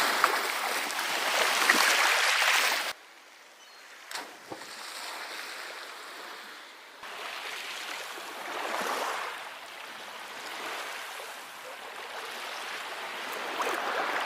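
Sea waves washing onto the shore, surging and fading every few seconds. The level drops suddenly about three seconds in and rises again about seven seconds in, where separate recordings are joined.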